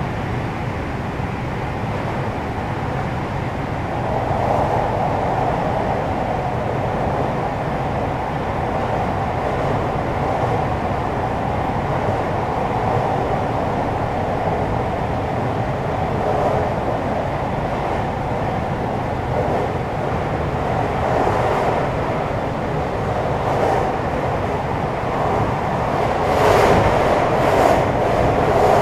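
On-board running sound of a JR West 521 series electric multiple unit, heard in motor car KuMoHa 521-34: a steady rumble of wheels on rail and motor as the train runs along. A few sharper clicks come near the end.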